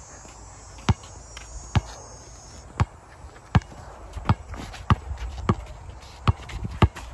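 Basketball being dribbled on a painted outdoor hard court: about nine sharp bounces, irregularly spaced less than a second apart.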